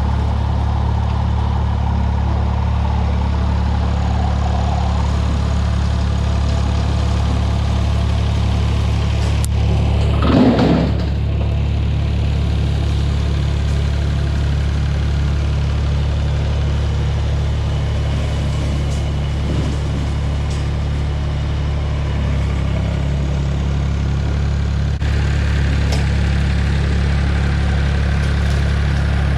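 Massey Ferguson 245 tractor engine running steadily while bush hogging, with a brief louder rush of noise about ten seconds in.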